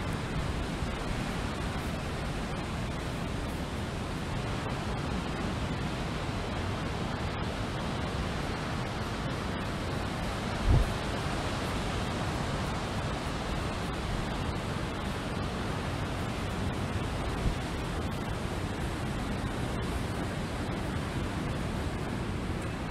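Steady wind rushing over open ground, with a brief low buffet of wind on the microphone about halfway through and a smaller one later.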